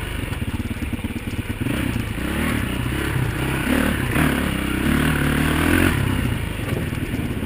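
Trials motorcycle engine running while riding a forest trail, the revs rising and falling several times with the throttle.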